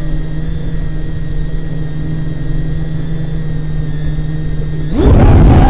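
Eachine Nano LR3 3-inch FPV quad's brushless motors spinning at a steady armed idle, a constant hum. About five seconds in, the throttle goes up and they jump to a much louder, rising propeller whine as the quad lifts off.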